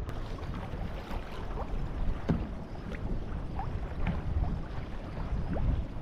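Wind buffeting the microphone in a heavy low rumble, with water lapping and splashing against a kayak's hull in short irregular slaps.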